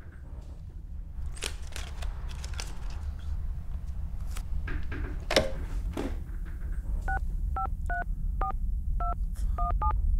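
Phone keypad tones: about eight buttons pressed in quick succession in the last three seconds, each a short two-tone beep. Before them come a few clicks and knocks, over a steady low rumble.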